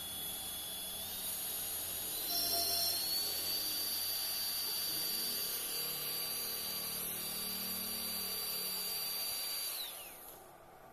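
Small DC motor running with a high whine that steps up in pitch several times in the first few seconds as the supply voltage is turned up. It then holds steady and winds down to a stop near the end as the motor is disconnected.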